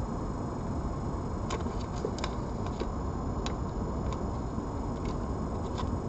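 A cat eating dry food close to the microphone: small, irregular crunching clicks, thickest around two seconds in, over a steady low rumble of background noise and a faint high whine.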